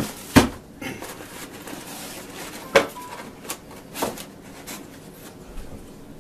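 Cardboard box and plastic-wrapped packaging being handled on a tabletop: a few sharp knocks, about half a second in and again near three and four seconds in, with light rustling between.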